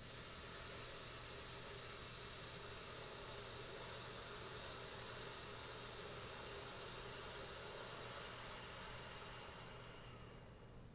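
A woman's long, steady hissed "sss" exhale, starting sharply, held for about nine seconds and fading away near the end. It is a singer's breath-control exercise: the breath is let out slowly on S while the rib cage is kept open.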